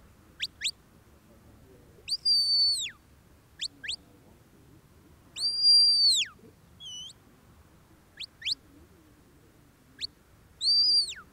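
A sheepdog handler's whistle commands to a working border collie: pairs of short, sharp rising pips alternate with longer high held whistles that drop away at the end, plus one short falling whistle about seven seconds in. Each pattern is a separate command steering the dog around the sheep.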